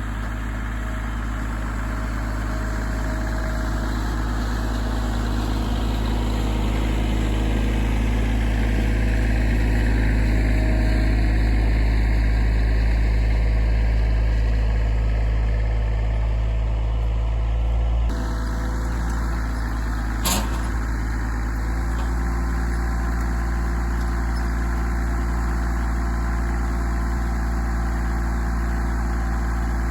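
Vehicle engine running steadily, growing a little louder toward the middle and then easing; the sound changes abruptly about 18 seconds in, and a single short click comes about two seconds later.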